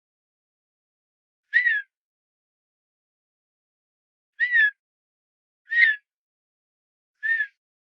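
Male redhead duck giving his quiet, whistled courtship call to a female, four short calls spaced a second or more apart, each rising briefly and then falling.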